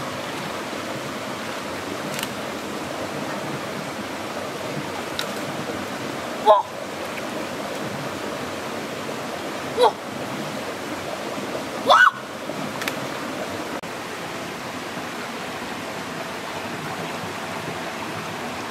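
Shallow stream flowing steadily over rocks, with three short watery splashes or plops about six and a half, ten and twelve seconds in.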